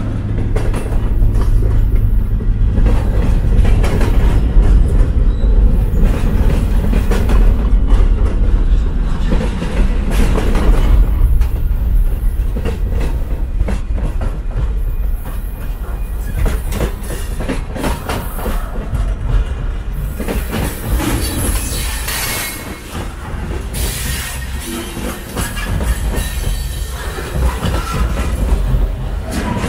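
Freight cars rolling past close by over a rail bridge: a heavy steel-wheel rumble with a constant rapid clatter of wheels over the rail, and now and then a wheel squeals.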